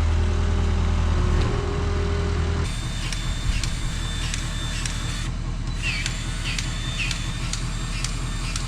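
A vehicle engine running steadily. About two and a half seconds in, the sound changes to a lower hum with a regular ticking about twice a second.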